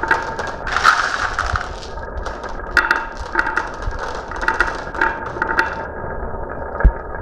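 Marbles rolling and clattering down a marble run, with bursts of rapid clicking as they strike the track and each other, and a dull thud near the end.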